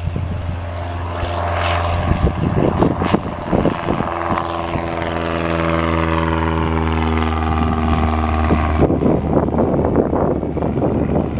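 Cessna 172N Skyhawk's four-cylinder Lycoming engine and propeller running at full takeoff power as the plane climbs out past, the pitch sliding steadily down as it goes by. About nine seconds in the engine tone drops away and gusty wind on the microphone takes over.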